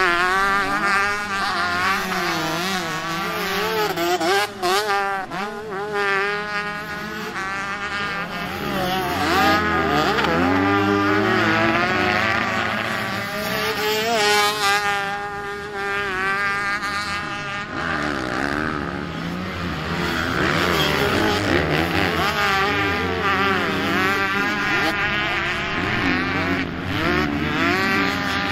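Several motocross bikes racing, their engines revving hard and easing off in turn, the pitch rising and falling again and again as they accelerate and shift, with more than one engine heard at once.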